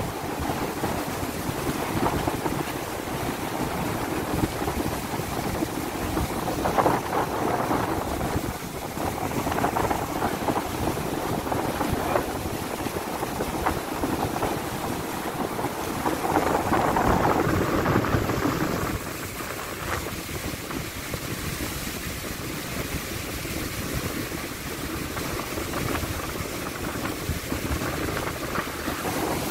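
Wind buffeting the microphone over a steady rushing noise, a little quieter for the last third.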